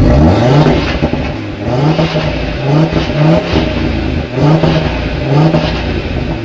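Exhaust of a 2018 Audi TT RS's turbocharged 2.5-litre five-cylinder engine being revved in a series of quick blips, each rising and falling back, about six in a row.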